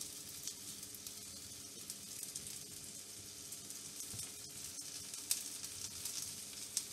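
Cheese gyoza frying in hot oil in a frying pan: a steady sizzle with scattered crackling pops, the sharpest a little past five seconds in and again just before the end.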